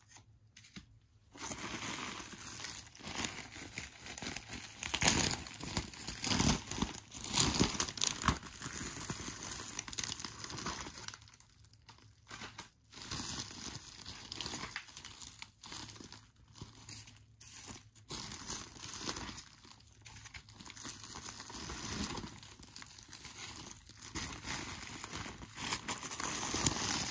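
Bubble-wrap pouch crinkling and rustling as it is handled and opened, in an irregular run of sharp plastic crackles that starts about a second in.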